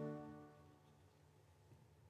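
A held chord from a concert wind band fading away within the first half-second or so, followed by near silence.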